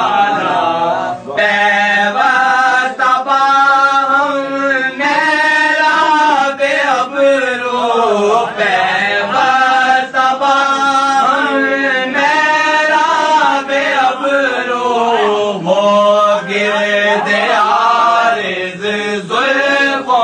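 A voice chanting verse in long melodic phrases, its notes held and bending up and down.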